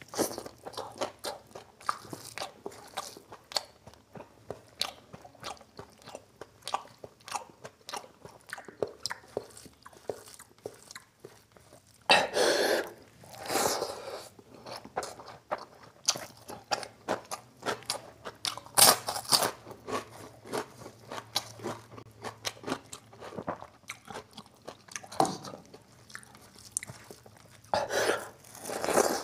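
Close-up chewing of curried rice and mutton eaten by hand, full of wet mouth clicks and smacks. Louder crunchy bites come at about twelve to fourteen seconds in, again around nineteen seconds, and near the end.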